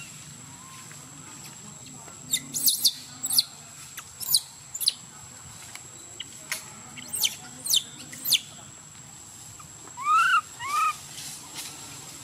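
High-pitched animal calls: a quick run of short chirps, each sliding steeply downward, then two short calls that rise and fall, near the end. A faint, steady high whine runs underneath.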